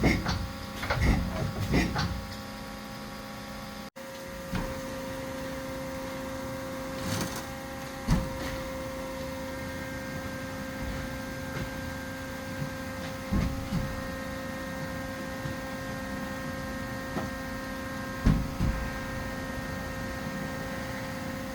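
Haas SL30T CNC lathe running: a steady hum made of several held tones. There are a few short knocks, clustered in the first two seconds and a few scattered later.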